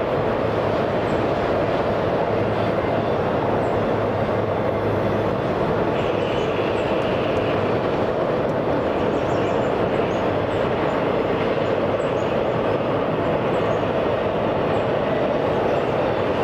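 Freight train of autorack cars rolling past, a steady, unbroken rumble of wheels on rail.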